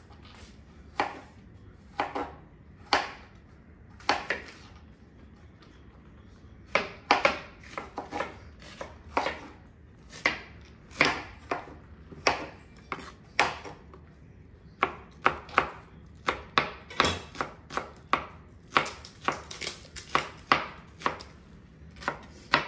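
Kitchen knife chopping vegetables on a cutting board: a few single strokes about a second apart, a short pause, then faster runs of quick chops.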